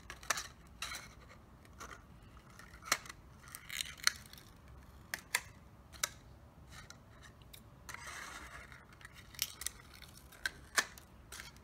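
Scissors snipping the thin plastic of a water bottle as the petal corners are rounded off: a string of irregular sharp snips, with a softer scratchy stretch about eight seconds in.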